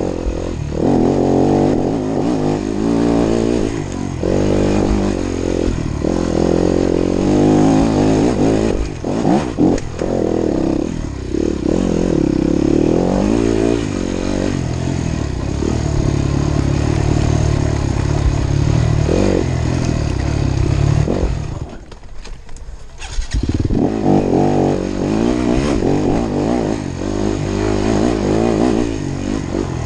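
Yamaha WR250F dirt bike's four-stroke single-cylinder engine, revving up and down as the throttle is worked on and off. About three-quarters of the way through it drops away almost to nothing for about a second and a half, then runs again.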